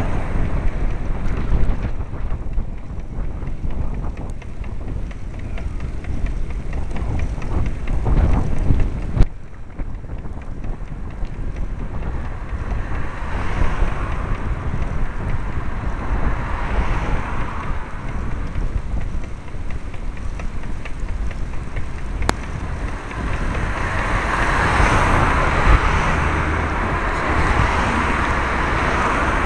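Wind buffeting the microphone of a moving bicycle, with a heavy rumble of road noise. Passing cars add a rushing swell, the loudest one building near the end as a vehicle approaches.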